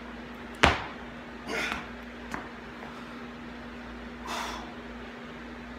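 A sharp knock about half a second in as the lifter drives a loaded barbell through a clean and jerk, followed by two hard breaths out from the lifter, with a small click between them. A steady low hum runs underneath.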